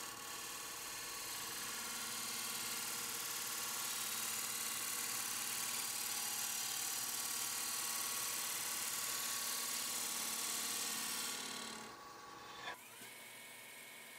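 Bowl gouge cutting the outside of a spinning mahogany bowl blank on a wood lathe: a steady hiss of shavings over the lathe's running tone. The cut ends about 12 seconds in, a click follows, and the lathe runs on alone.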